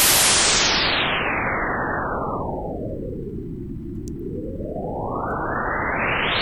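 White noise through a low-pass filter whose cutoff sweeps down, so the hiss grows duller until only a low rumble is left about four seconds in, then sweeps back up so it brightens again.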